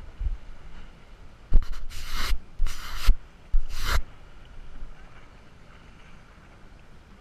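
Three short bursts of rubbing, scraping noise from a hand handling the waterproof action camera, the loudest sounds here, over a faint low rumble.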